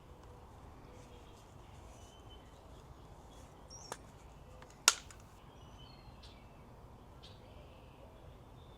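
Faint outdoor background with scattered distant bird chirps, broken about halfway by two sharp clicks about a second apart, the second much louder.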